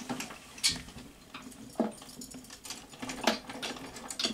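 Scattered clicks and rustles of small items and containers being handled and moved about while searching for a piece of jewellery.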